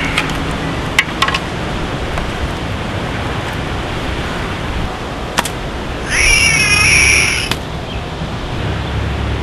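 A few sharp clicks, then about six seconds in a cat's screeching yowl, wavering in pitch for about a second and a half, over steady low outdoor background noise.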